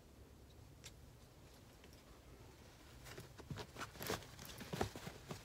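Baby squirrel monkey hiccuping: faint, short clicks, one about a second in and then a quick scatter of them through the second half.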